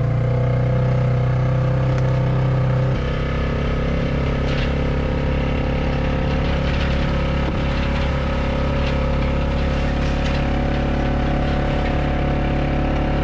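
Tractor engine running steadily at a constant speed, easing off slightly about three seconds in.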